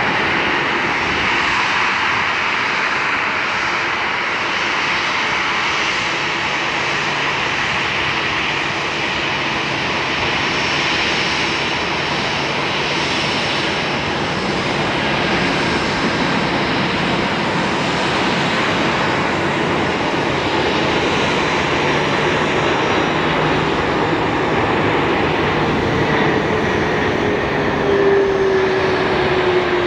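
Jet engines of a four-engine Boeing 747 freighter landing: a steady roar, with a slowly falling whine near the end as the plane rolls past on the runway.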